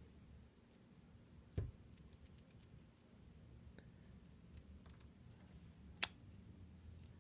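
Small metal parts of a Scorpion CX5 slider lock clicking as it is taken apart and its sliders are pulled out. There is a soft knock about one and a half seconds in, then a quick run of light clicks, scattered ticks, and one sharp click near the end.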